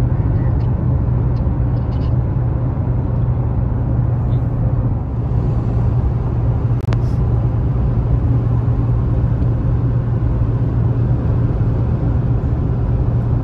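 Motor vehicle running: a steady low engine hum over road rumble, unchanging throughout, with one sharp click about seven seconds in.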